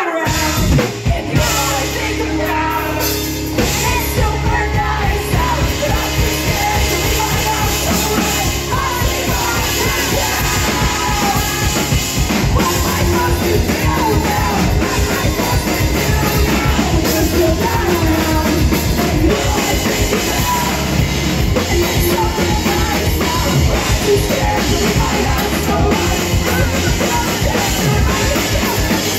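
Live punk rock band playing loud: electric guitars, bass guitar and drum kit, with sung lead vocals over them.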